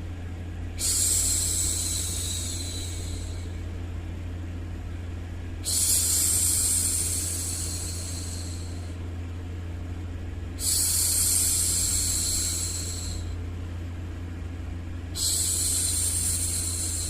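A woman's voice making long soft "shhh" shushing sounds for a baby, four times, one roughly every five seconds. Each shush lasts two to three seconds and fades out. Under them runs a steady low white-noise bed.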